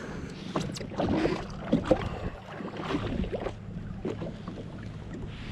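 Ambient sound aboard a jet ski on the water: a steady low hum with light wind and water noise, and a few small knocks.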